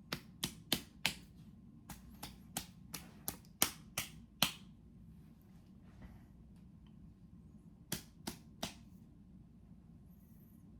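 A series of sharp smacks in three quick runs, about three a second: four, then about eight, then three more after a pause.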